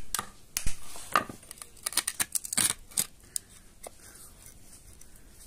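Light hammer taps with metallic clinks: an irregular run of sharp knocks that thins out and stops about four seconds in.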